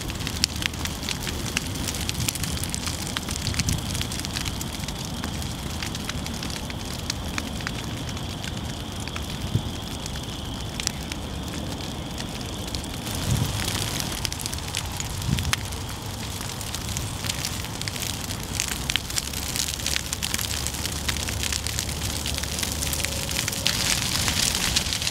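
Grass fire burning through dry prairie grass in a prescribed burn: a steady rushing noise with many sharp crackles and pops.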